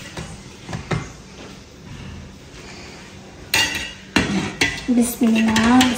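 Metal ladle stirring milk in a large aluminium pot, scraping and clinking against the pot's sides. The knocking is faint and sparse at first and gets louder and busier about three and a half seconds in.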